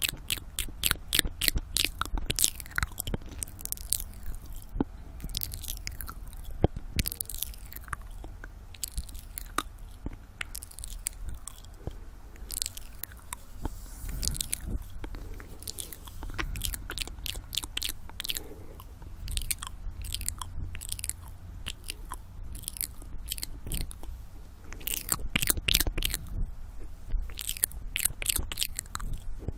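Close-up ASMR mouth sounds in the "ear eating" style: wet tongue and lip clicks and smacks right at the microphone, in dense runs near the start and again near the end.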